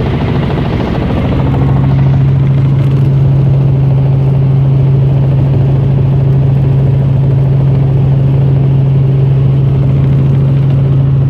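Helicopter in flight: a loud, steady engine and rotor drone, which settles and grows slightly louder about a second and a half in.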